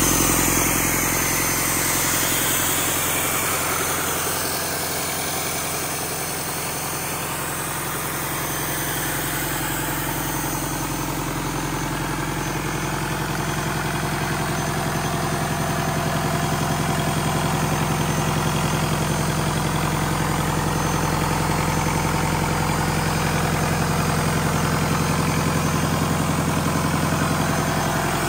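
Rebuilt Doosan D34P four-cylinder common-rail diesel engine running at a steady speed on its test run after rebuild.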